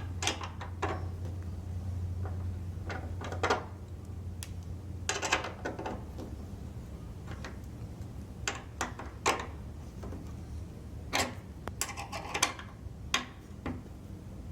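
Scattered knocks and clicks of a wooden bed frame being put together: side rail brackets slotted onto the bolts and the parts handled, a dozen or so separate sharp knocks. A low hum runs under the first few seconds.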